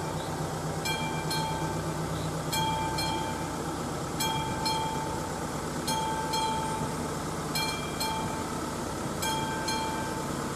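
Level-crossing warning bell of an AŽD 71 signal, a classic mechanical bell, ringing in pairs of strokes (ding-ding) that repeat about every 1.7 seconds. This marks an active crossing with the barriers down and a train due. A steady background rumble runs underneath.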